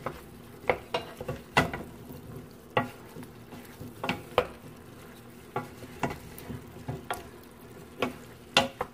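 Wooden spoon stirring pork chunks and diced potatoes in a stainless steel pot, knocking against the pot irregularly, about one or two knocks a second, over the faint sizzle of the meat sautéing.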